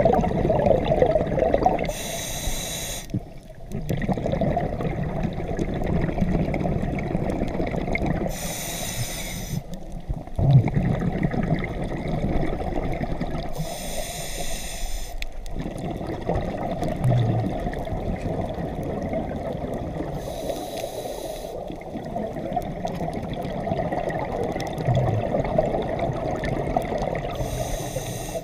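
A scuba diver breathing through a regulator underwater. A short hissing inhale comes about every six seconds, five times in all, and the bubbling rumble of the exhale fills the gaps between them.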